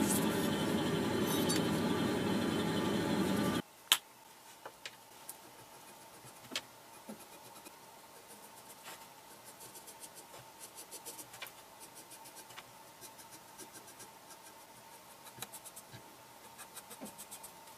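A steady hiss for about the first three and a half seconds cuts off sharply. Then a felt-tip marker scratches softly as it traces the outline of a steel cleaver blade on a template sheet, with scattered light clicks and ticks.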